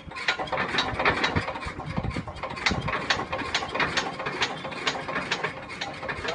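Manual hydraulic stacker's foot pump being pumped to raise its loaded forks: repeated metallic clicking and clanking from the pedal and pump linkage, about two clicks a second.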